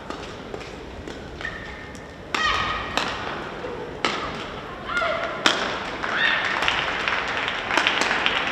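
Badminton hall ambience: scattered sharp knocks of rackets hitting shuttlecocks on neighbouring courts, the loudest about halfway through, mixed with a few short high-pitched calls from players.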